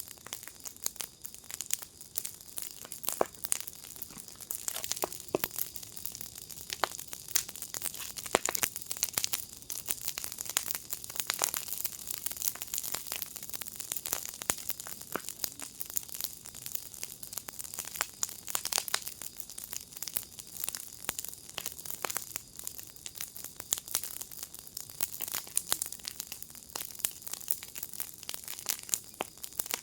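Wood fire in a fire pit crackling: a dense, irregular run of sharp pops and snaps over a steady hiss.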